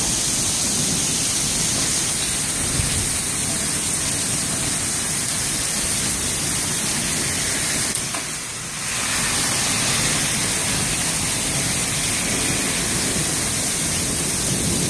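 Heavy hailstorm: a steady, dense hiss of hail and rain pelting down, dipping briefly about eight and a half seconds in.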